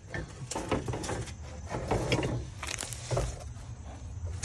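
Rake scraping and knocking about inside a plastic tub, against dirt, twigs and a bowling ball: a run of irregular scrapes and knocks.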